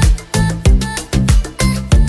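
Background music with a Latin, salsa-like beat: steady bass notes and percussion strokes about three times a second.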